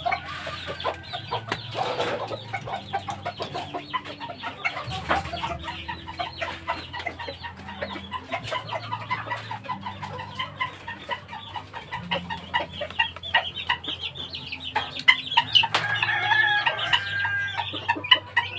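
Domestic chickens clucking and calling, a steady stream of short calls following each other closely, with a longer held call about sixteen seconds in.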